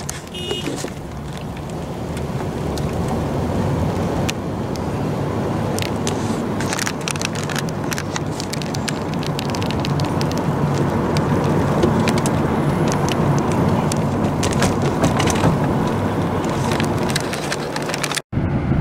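Steady road and engine rumble heard inside a moving car at highway speed, with scattered sharp crackling clicks throughout. The sound drops out for a moment near the end.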